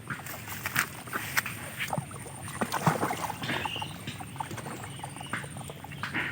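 Garlic being crushed and ground into a paste, heard as irregular knocks and scraping strokes. The loudest cluster comes about three seconds in.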